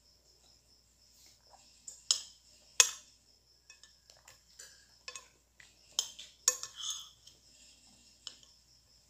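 Metal cutlery clinking and scraping against a dish while someone eats, with a handful of sharp clinks standing out. Crickets chirp steadily and faintly behind it.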